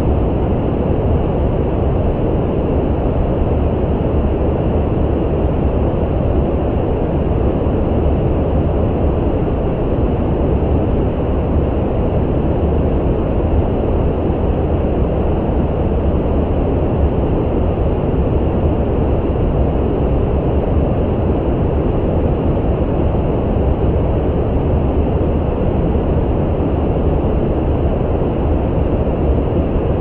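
Brown noise: a steady, even rumbling hiss weighted toward the low end, with no changes.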